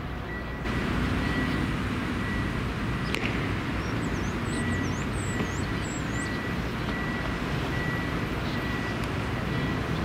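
Outdoor ambience of a large city construction site: a steady rumble of traffic and machinery that gets louder just under a second in, with a faint high tone sounding on and off and a few high chirps near the middle.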